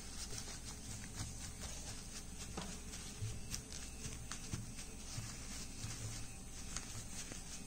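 Soft, irregular dabbing and patting of a wad of tissue on a melamine plate as a glued paper picture is pressed down, with faint scattered ticks over a low steady background hum.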